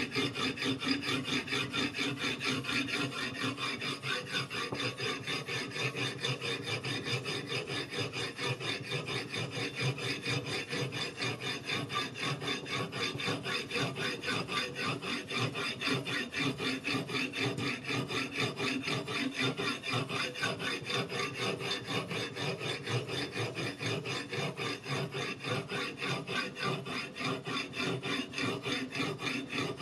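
A whetstone on a guided-rod sharpening system rasping along a chef's knife edge in quick, even back-and-forth strokes, a steady gritty grinding of stone on steel.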